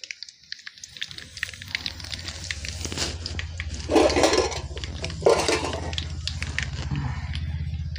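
Hot oil sizzling and crackling in an aluminium kadai as dried red chillies fry with mustard seeds, curry leaves and shallots for a tempering, with a steady run of sharp pops and spits. Two louder rushes of noise come about four and five seconds in.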